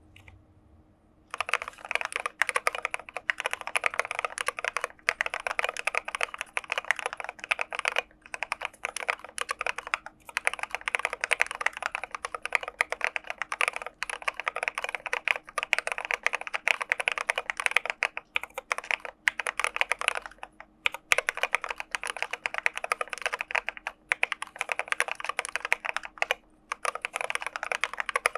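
Continuous fast typing on an IDOBAO ID80 mechanical keyboard with Gateron Black Ink v2 linear switches and SA-profile PBT keycaps. It is a dense stream of keystrokes that starts about a second and a half in, broken by a few brief pauses.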